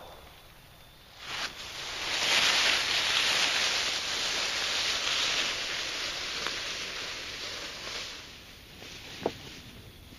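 Dry fallen leaves and undergrowth rustling and crunching for several seconds as a deer carcass is dragged through the brush. A single sharp click comes near the end.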